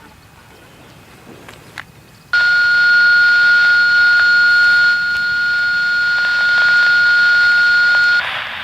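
Radio scanner receiving a transmission: a loud steady high tone over static switches on abruptly about two seconds in and cuts off just as suddenly near the end, with a moment of bare static after.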